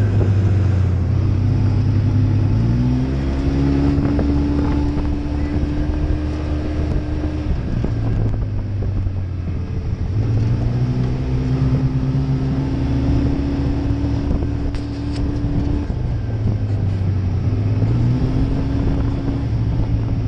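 Side-by-side UTV's engine running under way, its pitch climbing and holding as it accelerates, then falling back as it eases off, three times over.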